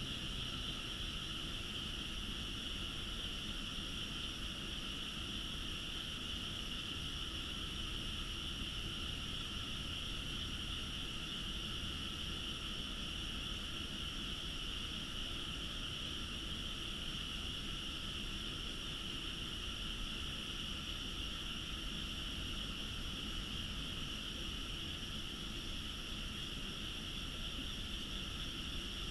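Steady chorus of frogs from nearby rice paddies, a continuous high-pitched calling without breaks.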